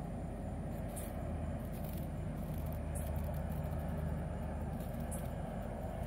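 A steady low hum and rumble, like a motor or engine running without a break, under a thin high hiss. There are a few faint brief ticks.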